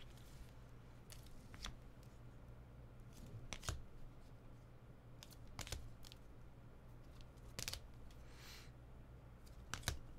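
Trading cards being handled: faint scattered clicks and taps, with a short rustle about eight and a half seconds in.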